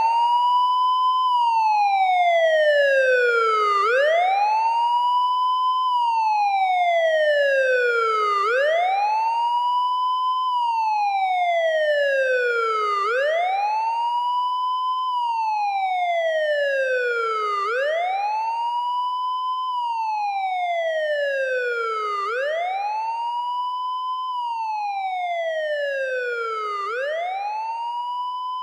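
Police siren wailing: its pitch sweeps quickly up, holds briefly at the top, then slides slowly down, a cycle of about four and a half seconds repeated six times. It slowly gets quieter.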